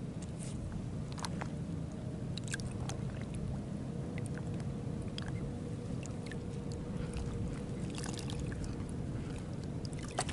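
Steady low rumble of open-air ambience on the water, with a faint steady hum underneath and scattered small clicks and ticks.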